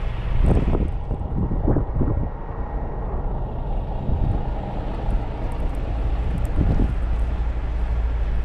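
Steady low vehicle rumble while rolling slowly through snow past idling semi-trucks. Wind buffets the microphone in a few brief gusts, about half a second in, near two seconds and near seven seconds.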